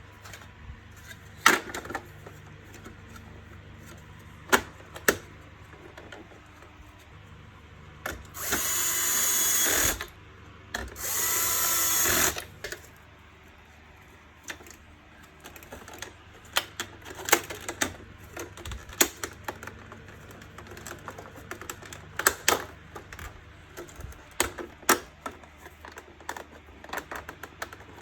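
Electric screwdriver running in two short bursts of about two seconds each, a little under halfway through, amid many small clicks and knocks of plastic parts being handled.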